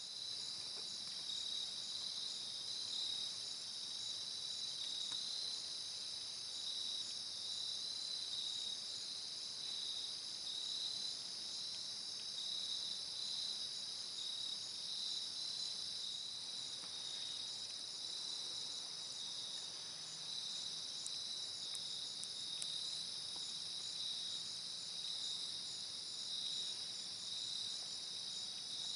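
Dusk chorus of crickets and other insects: several layers of steady, high, evenly pulsing trills going on without a break.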